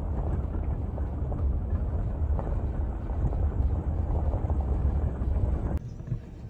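A vehicle driving along a dirt track, a steady heavy low rumble of engine and road noise. Near the end there is a sharp click and the rumble suddenly drops away.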